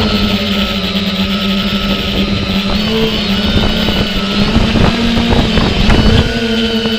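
Drone's electric motors and propellers buzzing steadily in flight, the pitch wavering slightly and shifting about six seconds in as the motors change speed. The propellers are newly balanced.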